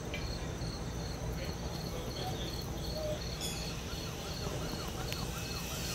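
Insects chirping in a steady rhythm of short, high pulses, over a low, steady outdoor rumble.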